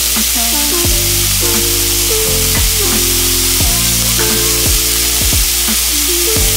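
Diced red onion and garlic sizzling in hot olive oil in a skillet as cherry tomatoes are dropped in at the start; the steady sizzle runs on with background music playing over it.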